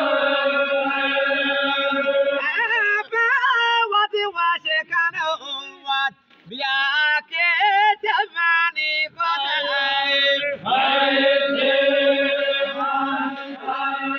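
Chogan devotional chant: a single voice holds a long steady note, then sings a quavering, ornamented melody broken by short breaths, and settles into another long held note about ten seconds in.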